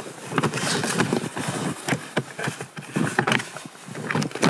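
Plastic side body panel of an Arctic Cat M600 Catalyst snowmobile being unfastened and worked loose by hand: a run of irregular clicks and knocks from the quarter-turn fasteners and the panel, with breathing close to the microphone.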